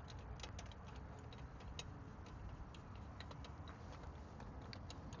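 Faint, irregular light metal clicks as cylinder head bolts are turned down by hand with a socket until they seat.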